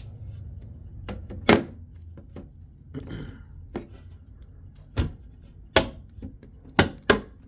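Removable cover plate of a PC case being fitted back on: a series of sharp knocks and clicks as it is pushed and clipped into place, one about a second and a half in and several more close together near the end.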